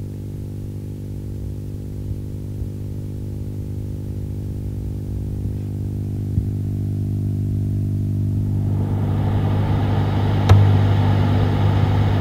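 Background music: a low sustained drone that slowly gets louder, with a hissing texture coming in about two-thirds of the way through and a single sharp hit near the end.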